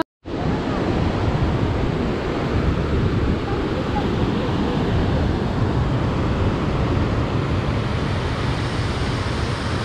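Wind on the microphone: a steady rushing noise with a heavy, fluctuating low rumble.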